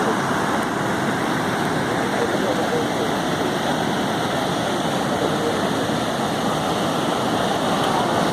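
Ocean surf: waves breaking and washing up the shore in a steady, continuous rush of noise.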